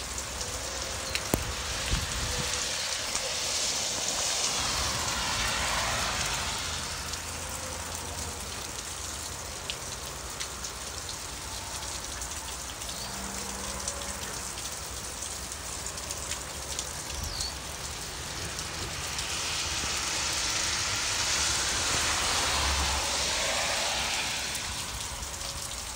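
Steady rain falling, a continuous hiss that swells louder twice, about four seconds in and again around twenty seconds in.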